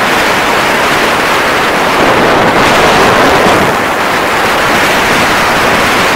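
Loud, steady wind rushing over the microphone of a snowkiter moving at speed on skis across lake ice.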